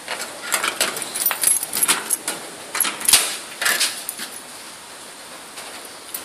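Keys jangling in a hand: a run of quick metallic rattles and clicks for about four seconds, loudest about three seconds in, then it goes quiet.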